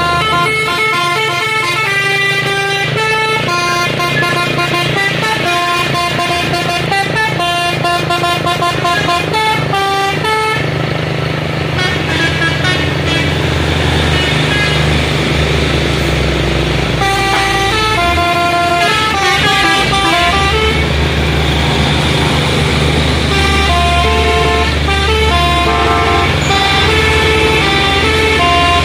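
Diesel tronton trucks climbing a steep grade, their engines droning steadily, while a multi-tone musical air horn plays stepped tunes in three spells: over roughly the first ten seconds, briefly around the middle, and again near the end.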